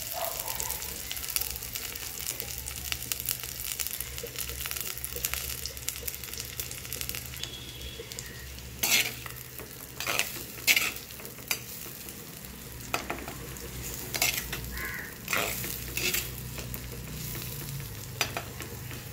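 Sliced onions sizzling in hot oil in an earthenware clay pot. From about nine seconds in, a spoon stirs them, scraping and knocking against the pot in short, sharp strokes.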